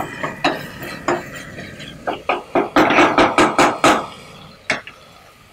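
A wooden spatula stirring and knocking against a stainless steel pot of sautéing onions and tomatoes: a few spaced knocks, then a quick run of about eight, and one more near the end.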